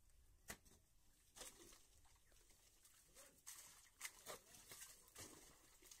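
Near silence broken by faint, irregular knocks, about half a dozen, from hand tools (a pickaxe and hoes) striking wet, muddy soil.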